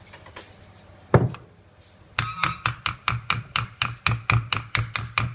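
A single loud knock, then from about two seconds in a fast run of sharp knocks, about five a second, as the handwheel is knocked loose to come off the balancing valve's spindle.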